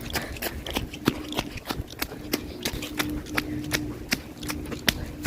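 Footsteps of a person running through mud: a quick, irregular run of sharp steps, several a second.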